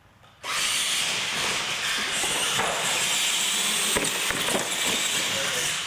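Electric R/C monster trucks launching off the start line at full throttle: a loud steady hiss of motors, gears and tyres that starts suddenly about half a second in. There are a couple of sharp thumps a few seconds later as a truck lands off the ramp.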